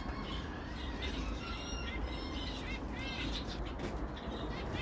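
Zebra finches calling: short, high chirps scattered through, with a run of them in the middle.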